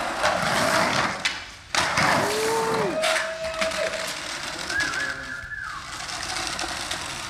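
Skateboard wheels rolling on the bare concrete of an empty pool. The rolling stops briefly just before two seconds in and comes back abruptly. A few short hooting tones sound over it: one swoops up and down, then a steady lower one follows, and a higher steady one comes near five seconds.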